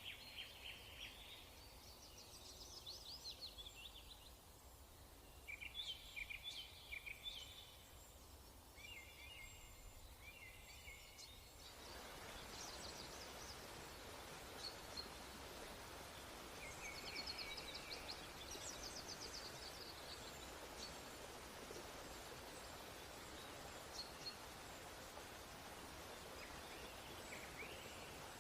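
Faint birdsong: bursts of short chirps and trills from small birds. About twelve seconds in, a steady hiss sets in beneath them.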